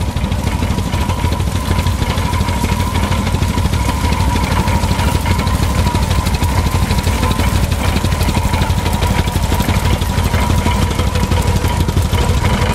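Ivel Agricultural Motor's twin-cylinder petrol engine running steadily under load as the tractor pulls a binder through oats, with a fast even beat and a steady high whine over it.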